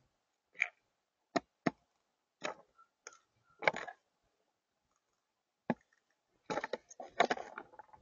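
Rock pigeon pecking at peanuts and seeds on a feeder table: scattered sharp taps of beak on the tabletop, then a quick flurry of taps and scuffling near the end.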